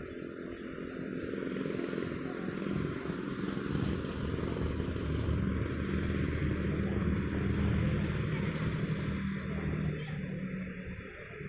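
A motor vehicle passing close by: its engine grows louder over the first couple of seconds, holds steady, then fades away near the end.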